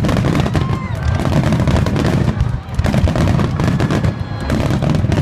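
Fireworks display: a dense, rapid barrage of aerial shells bursting over rising comets, with booms and crackle coming almost without a break. There is a brief lull about two and a half seconds in.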